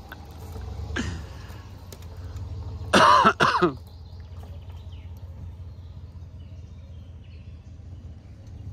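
Low, steady rumble of a pickup truck's engine running slowly. About a second in there is a brief vocal sound, and about three seconds in a person gives a louder cough-like outburst.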